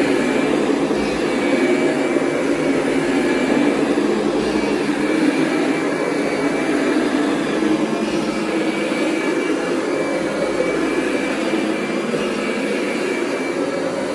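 Kirby G5 upright vacuum cleaner running steadily with its carpet shampoo system attached, a continuous motor noise with a faint high whine on top and gentle swells in level.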